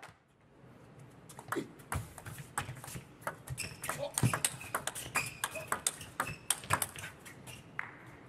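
Table tennis rally: the plastic ball clicking back and forth off the players' rubber-faced bats and bouncing on the table, in quick irregular taps starting about a second in, with a couple of short squeaks around the middle.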